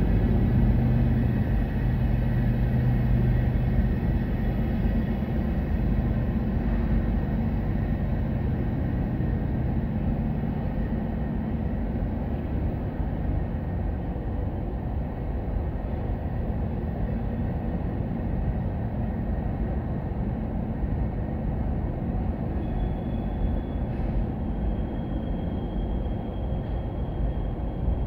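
Freight train rolling past, a steady rumble of wheels on rail that slowly fades. A low engine tone dies away over the first several seconds, and a faint thin high whine comes in near the end.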